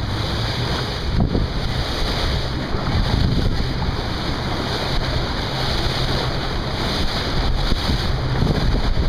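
Wind buffeting the microphone on a moving small boat, over a steady low motor hum and water rushing past the hull.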